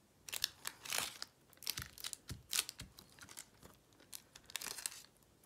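Packing tape dipped in acrylic paint being pressed onto a paper page and pulled off again, giving a string of short, irregular sticky crackles.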